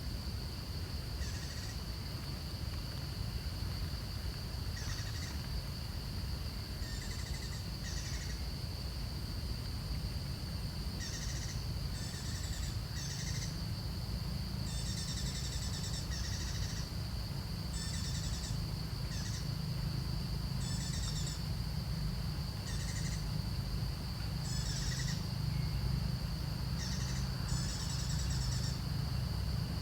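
Short high-pitched animal calls, about fifteen, each under a second and coming at irregular intervals, over a steady high-pitched whine and a low rumble.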